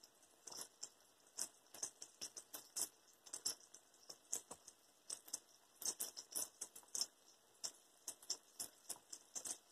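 Battered bacon frying in hot vegetable oil in a skillet, with faint, irregular crackles and pops, several a second.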